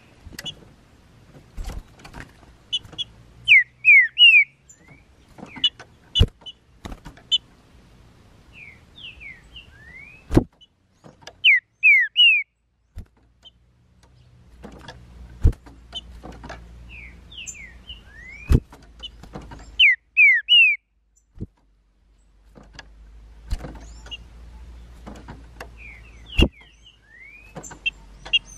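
Green-winged saltators (trinca-ferro) singing: short, loud phrases of slurred whistled notes, repeated every few seconds. Several sharp clicks fall between the phrases.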